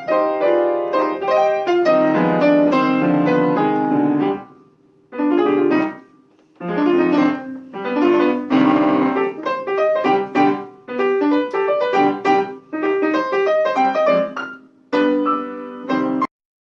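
Piano played in short phrases of melody and chords, with brief pauses between them, stopping abruptly near the end.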